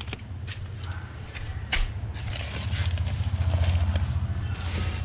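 Plastic bags rustling and bundles bumping as luggage is pushed into a packed car's rear cargo area, with a few sharp rustles and knocks in the first two seconds. Underneath is a low steady rumble that swells about three seconds in.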